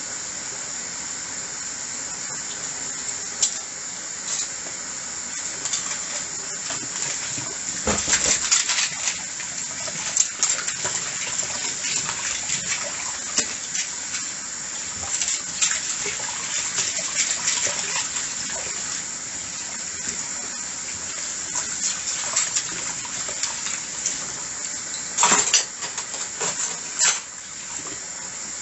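Tap water running into a sink while dishes are washed, with frequent clinks and knocks of crockery. Clusters of louder clinks come about eight seconds in and again near the end.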